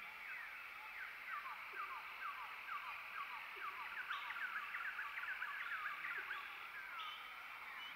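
Chorus of small calling animals: many short, high chirps sliding downward in pitch, overlapping most thickly in the middle, over a steady high hiss.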